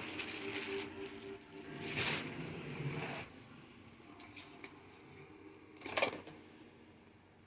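Handling noise from a plastic car grille: short bursts of rustling and scraping, loudest about two seconds in and again about six seconds in.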